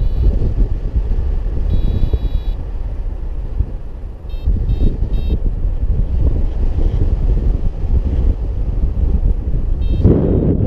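Wind rushing over the microphone of a flying paraglider, with the beeping of a Syride variometer on the riser: a brief beep at the start, a longer tone about two seconds in, three short beeps a little before five seconds, and one more near the end. The beeps are the instrument signalling rising air.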